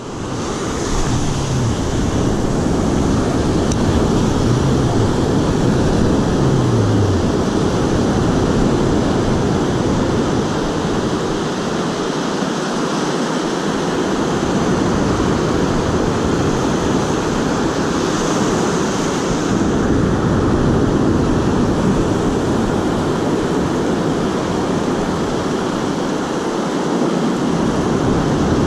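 Steady wash of surf breaking and running up the beach, mixed with wind buffeting the microphone.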